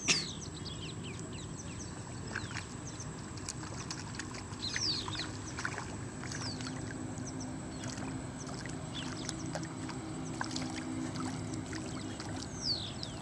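Outdoor riverside ambience: birds calling with short, quick falling chirps every few seconds, over a low steady rumble and a thin steady high whine.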